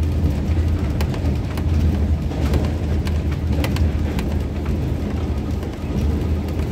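Train running noise heard from on board: a steady low rumble with scattered sharp clicks and knocks.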